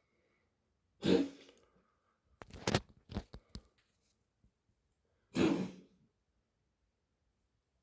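A pet coughing in separate fits: one cough about a second in, a quick run of short hacks a little later, and another cough past the middle.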